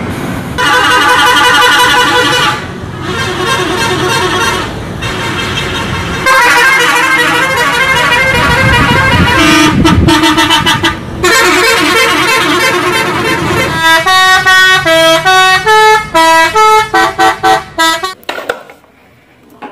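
Multi-tone musical bus horns of the Indonesian 'telolet' kind sounding long loud chords, some of them warbling, with short breaks between blasts. Near the end they play a quick tune of short notes stepping up and down in pitch.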